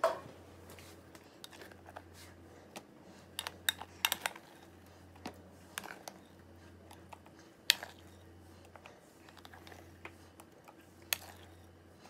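Sparse, irregular light clicks and taps of a spoon and plastic ice cream containers being handled, with a quick cluster of clicks about four seconds in.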